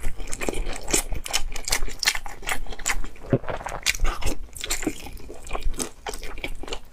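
Close-miked mouth sounds of a person chewing and biting into braised pork intestine: a fast, irregular run of short clicks and smacks.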